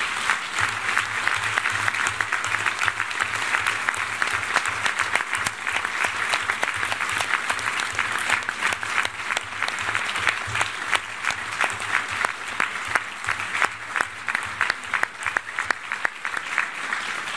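A roomful of people applauding: a long, steady round of dense clapping that thins slightly near the end.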